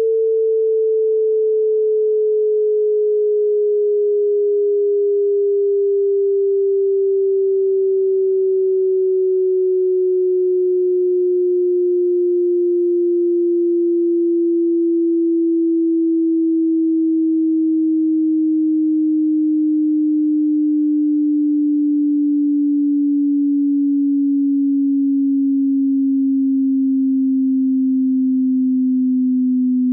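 A single pure sine-wave test tone from a high-to-low hearing-test sweep, gliding slowly and evenly downward in pitch by almost an octave.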